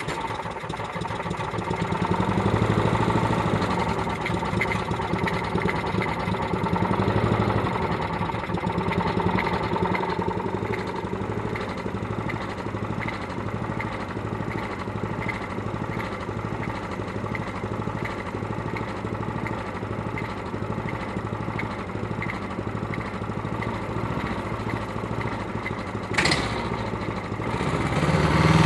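Toro SR4 Super Cycler lawn mower engine catching and running. Its speed swells and sags a few times in the first ten seconds, then it runs steadily, with a sharp click about 26 seconds in and a rise in speed near the end. The owner puts the unsteady running down to a broken governor.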